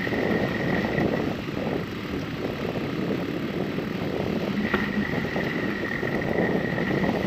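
Bicycle rolling along a dirt forest road, with tyre rumble and wind buffeting the rider's camera microphone. A thin high whine sounds for about the first second and comes back near the end.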